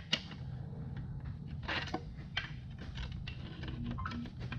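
Irregular metallic clinks and clanks of hand tools and parts being handled on the bottom end of a GM 5.3 LS V8 during teardown, over a steady low hum.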